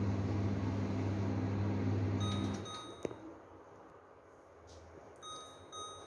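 LG MJEN326UH microwave oven running with a steady low hum and fan noise, which stops about two and a half seconds in. Short high key beeps from the control panel come just before and after the stop, a single click follows, and two more beeps sound near the end as the buttons are pressed.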